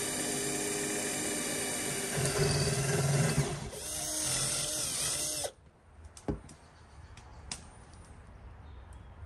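Cordless drill boring into a beef leg bone with a long twist bit. The motor whines steadily, grows louder under load two to three seconds in, wavers in pitch, then stops suddenly about five and a half seconds in. A few light knocks follow.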